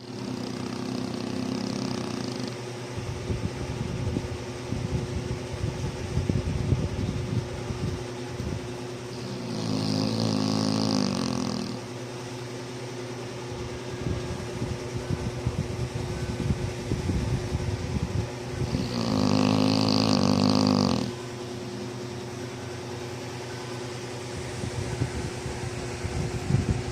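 Dog snoring: three long, pitched snores about nine to ten seconds apart, with rattling, snuffly breathing in between.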